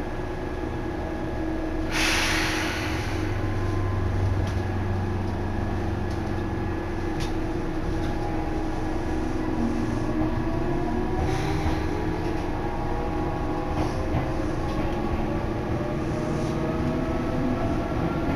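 Electric commuter train heard from inside the carriage, running with a steady hum. A sharp hiss comes about two seconds in, and from the middle on the motor whine rises steadily in pitch as the train gathers speed.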